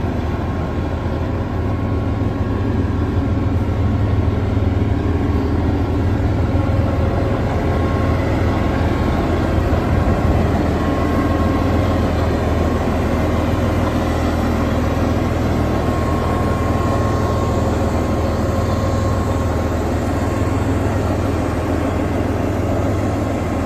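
Caterpillar D8K bulldozer's turbocharged six-cylinder diesel engine idling steadily, a deep even sound with no change in speed.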